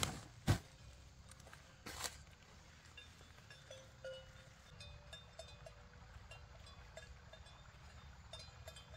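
Dry corn cobs knocked and dropped into a woven plastic sack, with a sharp knock about half a second in and another about two seconds in, then scattered faint knocks.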